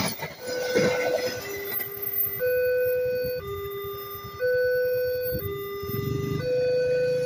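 The last carriages of a passing train go by in the first second or two. Then a two-tone railway level-crossing warning alarm alternates between a higher and a lower tone, switching about once a second.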